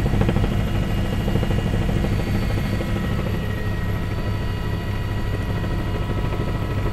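Helicopter running steadily in flight: a fast, even low pulsing with a steady whine over it.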